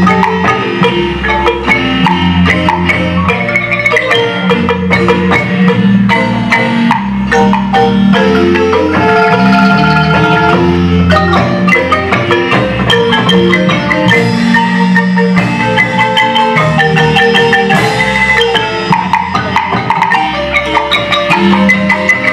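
Marimba band playing dance music: rolled and struck mallet notes over a steady, plodding bass line.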